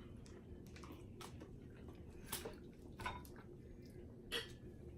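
Faint chewing and crunching of tortilla chips with dip, a handful of soft, separate crunches spread through.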